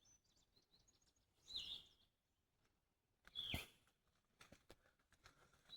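Short, high-pitched cries repeating about every two seconds, likened to a goat screaming and taken for the sounds of a female turtle laying her eggs.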